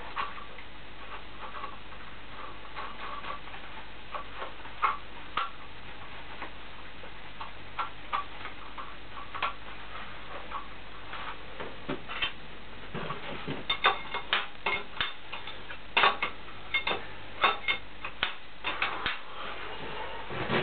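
Irregular metal clicks and knocks of hand tools and fasteners as the milling head is bolted onto a milling machine. They come sparsely at first and grow busier and louder over the second half.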